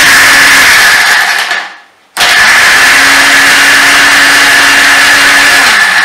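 Electric mixer-grinder blending milk with dates and nuts, running loud and steady. It is switched off about a second in and winds down to silence, starts again about two seconds in, spinning up to speed, and winds down again at the end.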